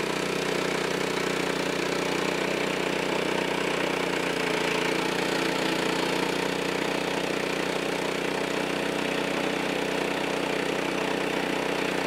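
Frontier OS23 portable band sawmill's small gas engine running steadily at an even pitch while the blade is run through a red maple log to cut a board.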